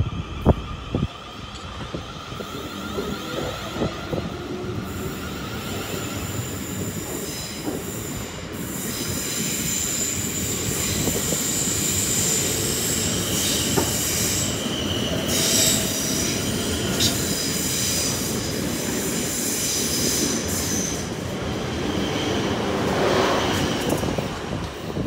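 Ten-coach Class 444 electric multiple unit running along the platform, its wheels squealing high and steady over the rumble of the train, growing louder about a third of the way in, with a few clunks from the wheels.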